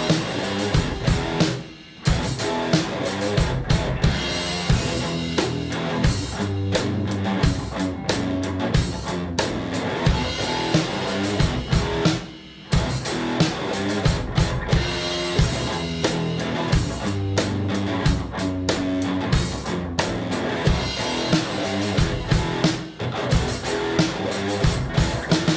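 Background music with a drum kit keeping a steady beat. It drops out briefly about two seconds in and again around twelve seconds in.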